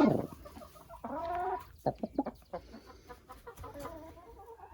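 Domestic chickens clucking and squawking: a loud call right at the start, a longer pitched call about a second in, then a few short clucks that fade to fainter ones.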